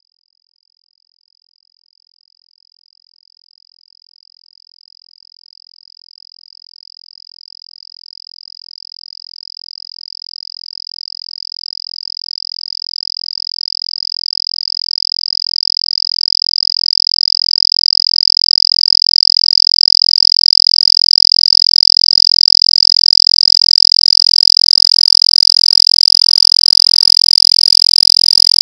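A single steady high-pitched tone fades in from silence and grows slowly louder. About two-thirds of the way in it turns harsher, with higher overtones and a faint low buzz added.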